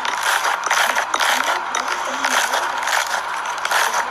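Slime being squished and poked, a dense run of small crackles and clicks.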